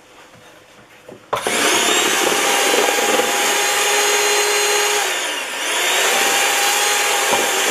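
Electric hand mixer switched on about a second and a half in, running steadily as it beats egg whites into a stiff meringue. Its sound dips briefly past the middle, then picks up again.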